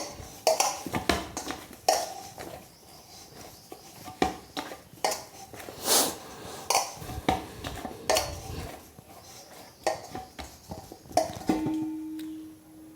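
Wheat-flour dough being kneaded by hand in a dish, with irregular knocks and clinks of the dish.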